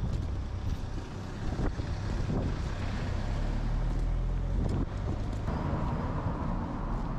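A car driving slowly past on the street, with wind rumbling on the microphone.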